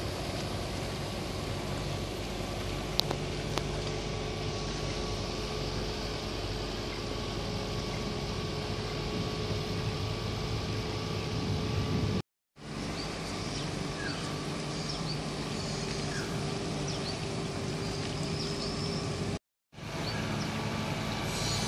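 Steady engine hum with a low drone and a steady higher tone, dropping out abruptly for a moment twice. Faint bird chirps come through in the second half.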